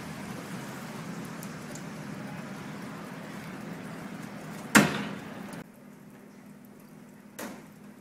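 Construction crane being folded up: a steady machinery hum with a single sharp, loud bang a little past halfway. The hum cuts off suddenly soon after, and a second, softer bang comes near the end.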